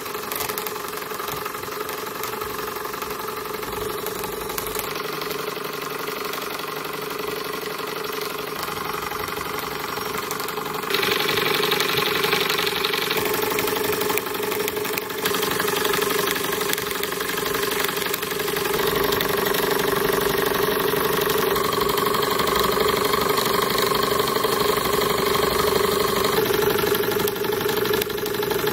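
Model horizontal mill steam engine running steadily under steam. About eleven seconds in it gets louder, with a couple of seconds of hiss.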